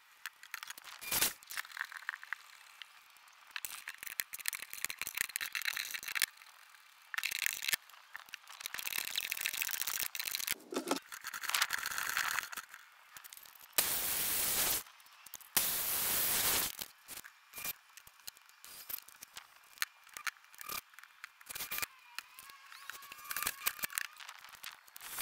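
Wooden boards and hardware being handled: scrapes, knocks and rattles of wood on plywood, with two louder stretches of hissing noise about halfway through.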